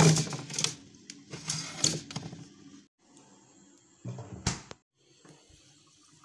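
Clicking and rattling of a foil-wrapped plastic tub being handled and set into a freezer, busiest in the first two seconds, with one short clatter about four seconds in.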